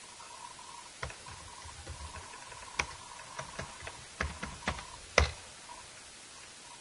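Computer keyboard typing: a string of irregular key clicks over about four seconds, ending with one loudest keystroke about five seconds in.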